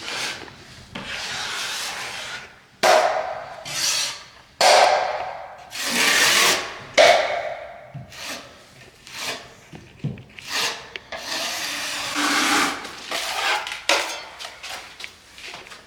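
Repeated hand-tool strokes rubbing and scraping across a drywall patch, roughly one a second, each a short hiss of varying strength.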